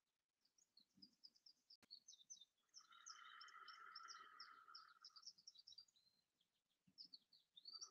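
Near silence with faint birdsong from the woods: many short, high chirps throughout, and a faint steady buzz in the middle. A single soft click about two seconds in.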